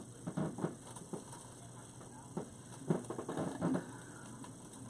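Thick rustic wire being bent by hand into a U: a scatter of light, irregular clicks and scrapes.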